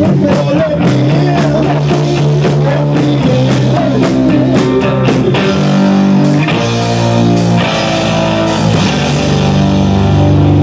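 Live rock band playing loud: electric guitars over a drum kit, with a steady beat for the first half, then held, ringing chords and cymbal crashes.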